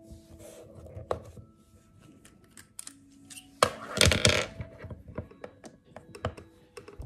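Hands handling an iPad and Apple Pencil on a desk: scattered light taps and clicks on the tablet and its case, with a louder burst of rubbing and rustling from about three and a half to four and a half seconds in.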